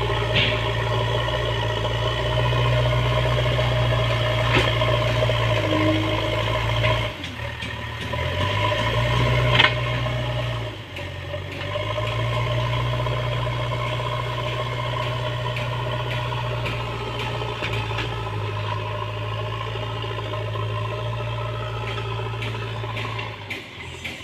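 JCB 3DX backhoe loader's diesel engine running under work. Its speed dips and picks up again twice, about a third of the way in, then it runs steadily. A few brief sharp knocks come over the top.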